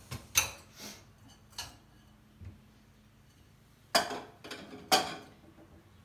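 Sharp clinks and knocks of ceramic mugs and glasses against each other and the wire rack as they are lifted out of a dishwasher's upper rack. There are a few light taps, then two louder ringing clinks about four and five seconds in.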